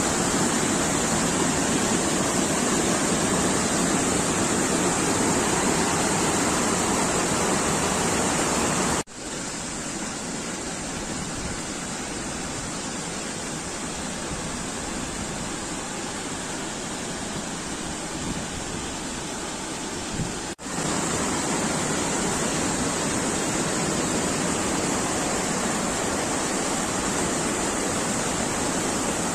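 Mountain river water rushing and splashing over rocks in cascades and small waterfalls: a steady, loud rush. It drops suddenly to a softer rush about nine seconds in and comes back to full strength about twenty seconds in.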